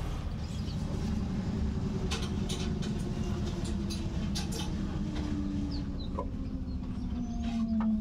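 LG 9 kg Direct Drive front-load washing machine running, a steady low rumble from the turning drum with a motor whine that slides slowly down in pitch as the drum slows. A few faint knocks come from the drum.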